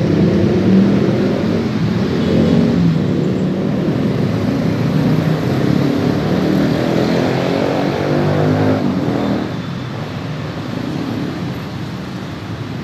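A motor vehicle engine running close by, its pitch shifting up and down, with a drop in loudness about nine and a half seconds in.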